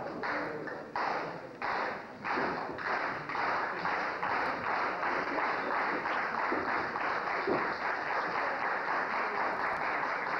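Crowd clapping in unison, about two claps a second.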